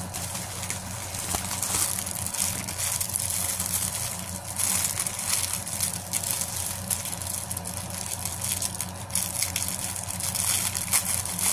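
Plastic packaging crinkling and rustling as a clear plastic bag and a poly mailer are handled and pulled open, over a steady low hum.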